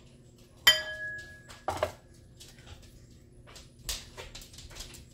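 A sharp clink that rings for about a second, typical of a glass bowl struck on the counter, followed by a duller knock, then soft clicks and squishes as partly frozen ground turkey is pulled apart by hand into the bowl.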